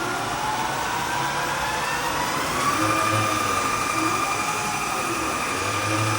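CNC gantry milling machine running: a motor whine rises in pitch over about two seconds, then holds steady at a higher pitch, with a low hum pulsing a few times underneath.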